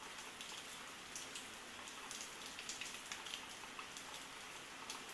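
Steady rain falling, with individual drops heard as scattered ticks.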